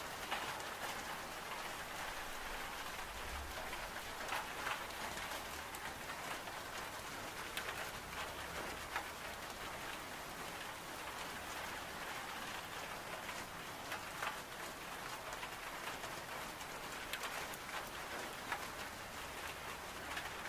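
Steady rain on window glass, with a wood-burning stove's fire crackling in occasional sharp pops.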